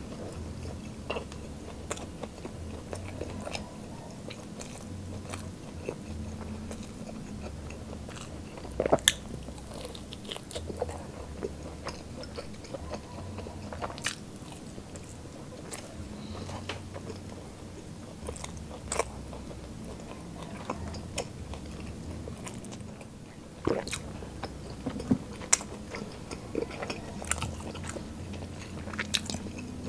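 Close-miked chewing and biting of spicy fried chicken wings, with sharp crunches and clicks scattered throughout; the loudest crunches come about nine seconds in and again from about twenty-four seconds on.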